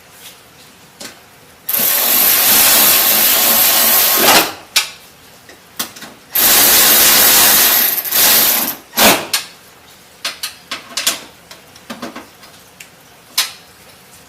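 Handheld power tool running twice for about two and a half seconds each, driving the nuts that hold a new window regulator in a truck door, followed by several light clicks and knocks of metal parts.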